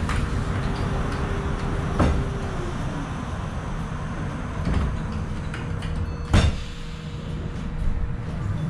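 Inside a stopped New Flyer E40LFR electric trolleybus: a steady low rumble with passing traffic and a steady hum that sags in pitch about two and a half seconds in. Two sharp knocks sound about two seconds in and again about four seconds later, the second the louder.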